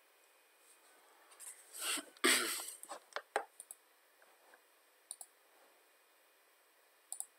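A few quiet computer mouse clicks, scattered and single, with a short breathy rush of noise about two seconds in.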